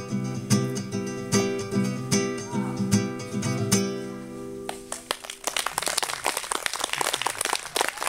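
Acoustic guitar playing the closing chords of a song in an even rhythm, the last chord ringing out about four seconds in. From about five seconds in, audience applause.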